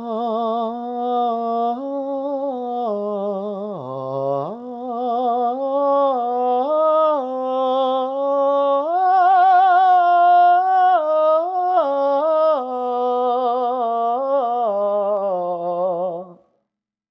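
A man humming a wavering melody on one long held breath, stepping up and down in pitch with vibrato, as a test of how long his breath lasts. It cuts off suddenly near the end.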